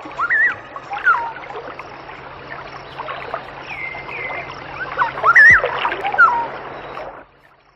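Running water with short rising-and-falling chirps over it, stopping abruptly shortly before the end.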